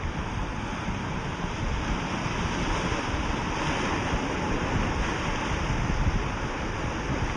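Rough sea surf washing steadily, with strong wind buffeting the microphone in a low rumble.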